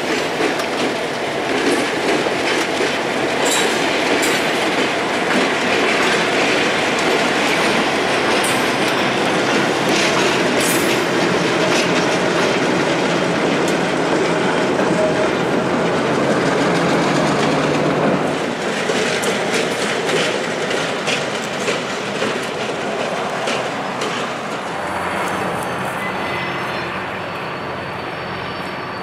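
Pair of EMD GP15-1 diesel switchers working hard as they pass close, followed by loaded coke hoppers rolling by with the clickety-clack of wheels over rail joints. The sound is loudest at first and eases off after about 18 seconds as the train moves away.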